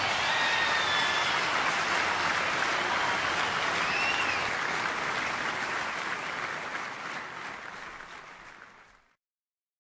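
Applause from a crowd, with a couple of faint whistles, fading away over the last few seconds and ending in silence.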